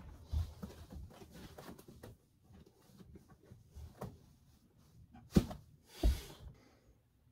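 Lace-up boots being pulled on and set down on a carpeted floor: soft rustling with dull thuds, the two loudest thuds coming close together near the end.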